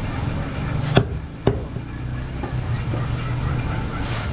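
Two sharp chops about half a second apart, about a second in: a butcher's heavy knife cutting through a goat carcass into a wooden chopping block, over a steady low hum.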